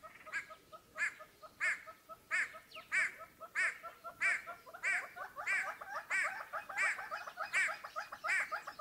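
Animal calls repeating steadily: a louder call about every two-thirds of a second over a quicker run of soft chirps, several a second.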